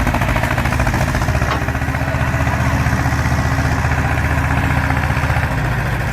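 Ursus C330 tractor's two-cylinder diesel engine running steadily with an even, rapid pulse.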